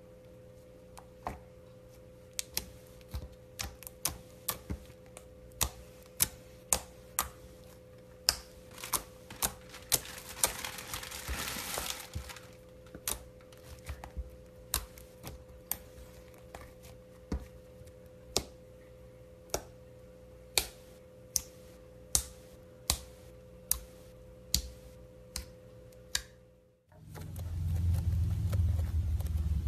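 Glossy purple slime pressed and poked by hand, giving sharp wet popping clicks as air pockets burst, about one to two a second. Near the end a louder crunching starts as foam-bead slime (floam) is squeezed.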